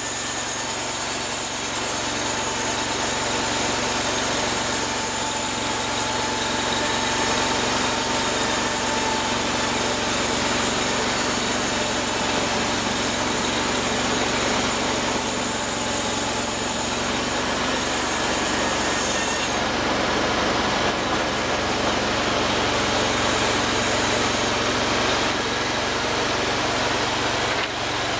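Homemade bandsaw mill cutting through a log: its engine runs steadily under load while the band blade saws through the wood.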